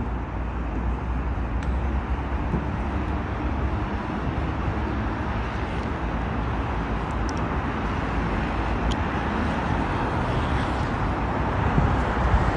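Steady road traffic from a multi-lane road below: a continuous rumble of passing cars that grows a little louder near the end.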